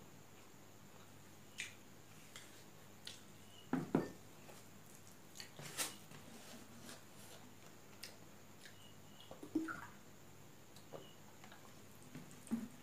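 Fingers mixing and squeezing rice with dal on a steel plate: soft squelches and scattered light clicks of fingers and food against the metal, with a couple of louder knocks a little before 4 s and near 10 s.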